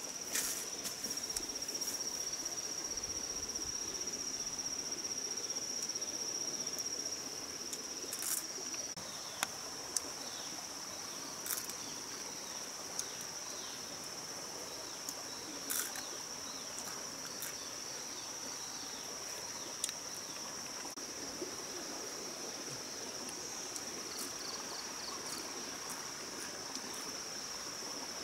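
Insects buzzing in a steady high-pitched drone, with a few sharp clicks scattered through.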